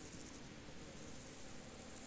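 Faint field ambience with a steady low hiss. A high, pulsing cricket trill fades out just after the start and comes back near the end.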